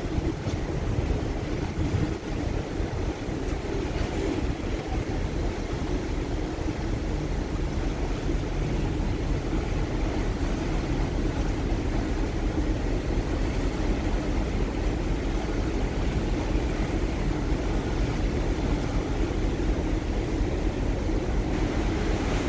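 Steady low drone of the ferry MV Blue Puttees under way, mixed with wind buffeting the microphone. The buffeting is heaviest in the first few seconds.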